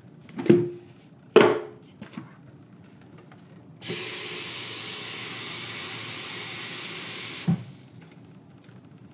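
Tap water running from a basin faucet into the plastic water tank of an aroma diffuser for about three and a half seconds, then cutting off with a knock. Before it, two hard plastic knocks as the diffuser's parts are handled.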